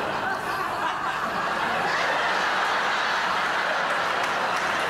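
Live theatre audience laughing, a dense, steady wash of crowd laughter.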